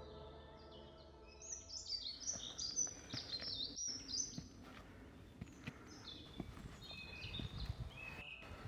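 Small songbirds chirping and singing in quick runs of short, high notes, in two busy spells, over a faint steady outdoor hiss. A soft held music chord fades out just at the start.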